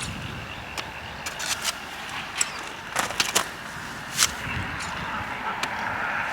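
Irregular sharp clicks and snaps, about ten of them, the loudest in a cluster around the middle, from plant growth being cut and broken off by hand.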